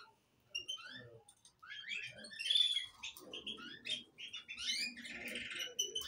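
Caged canaries chirping and calling in short high notes, with a rapid trill near the end.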